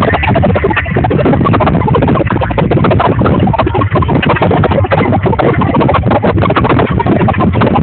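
Loud music from a live stage show.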